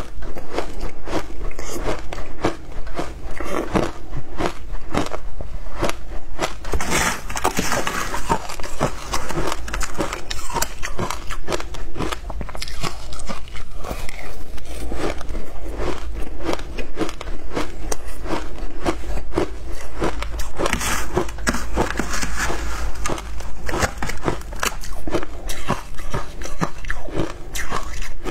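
Shaved ice being bitten and chewed close to the microphone: a dense run of crisp, crackling crunches, thickening into louder flurries as fresh mouthfuls are bitten.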